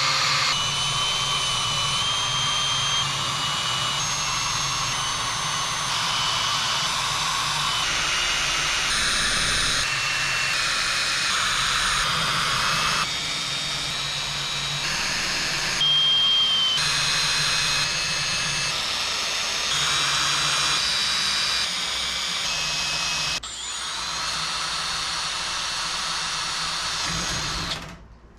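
Cordless drill whining as it bores 3/32-inch pilot holes through an aluminium wing-spar cap strip into a wooden backing board. The whine's pitch shifts abruptly every second or two, and the sound stops just before the end.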